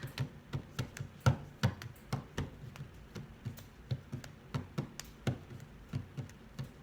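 Hands tapping on a hard surface in a steady run of light taps, about three a second.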